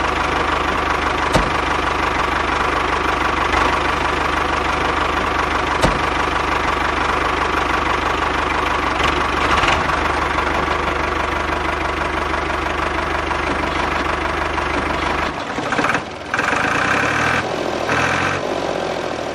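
Tractor engine running steadily. Its sound breaks and changes near the end.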